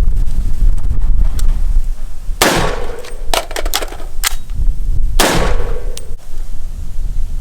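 Two rifle shots from a SIG Sauer MCX, about three seconds apart, each with a short echo, and a few fainter sharp cracks between them. Wind rumbles on the microphone throughout.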